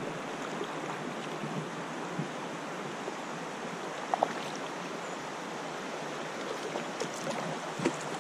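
Kayak paddle strokes in calm river water: steady splashing and trickling, with a couple of light knocks about four seconds in and a few more near the end.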